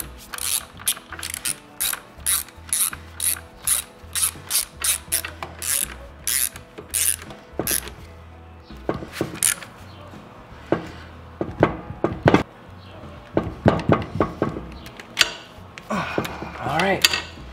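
Hand ratchet clicking in quick, even back-and-forth strokes, about two a second, as a subframe bolt is worked. The strokes turn more irregular after about eight seconds, with short metallic clinks between them.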